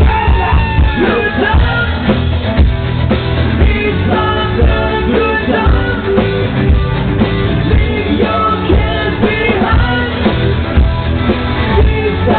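Live rock band playing loudly: electric guitar, drum kit with a steady beat, and a lead vocal sung into a microphone.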